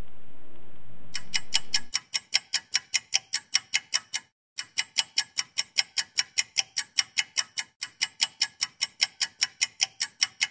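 Clock ticking fast and evenly, about four ticks a second, starting about a second in after a low hiss, with a brief break about four and a half seconds in.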